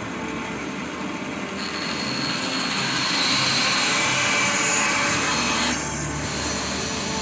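Bandsaw running and cutting through a glued-up laminated ash and utile frame blank. The cutting hiss builds from about two seconds in and stops suddenly near the end as the blade comes through and the offcut drops free, leaving the saw running.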